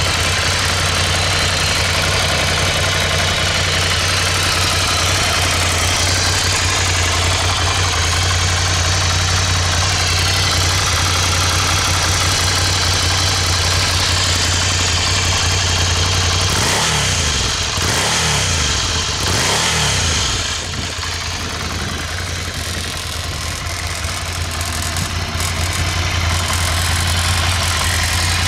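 Ducati Scrambler Urban Enduro's 803 cc air-cooled L-twin idling steadily through its stock exhaust, with a few quick throttle blips, each rising and falling in pitch, about two-thirds of the way through.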